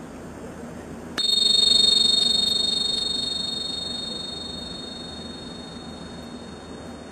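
Tingsha hand cymbals struck together once, about a second in, giving a bright, high ring that wavers slightly and slowly dies away.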